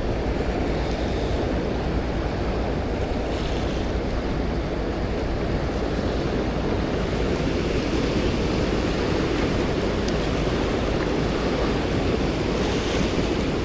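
Steady wind rumbling on the microphone, an even low noise with no change throughout.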